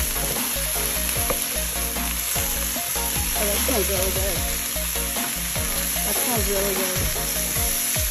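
Kabocha squash, okra and garlic sizzling as they stir-fry in a pan, turned over and over with a wooden spatula.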